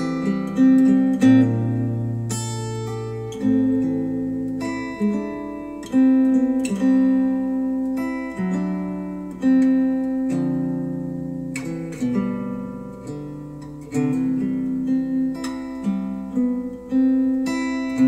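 Acoustic guitar music played back through Wharfedale Denton 80th bookshelf speakers driven by an NAD C 368 integrated amplifier: slow plucked notes that ring and fade one after another.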